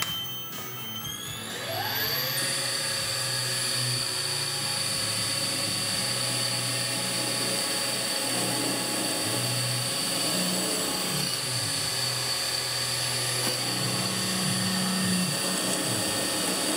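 Milling machine spindle spinning up, rising in pitch over the first two seconds, then running steadily with a high whine while a drill bores into a metal part to make the hole for an M6 thread.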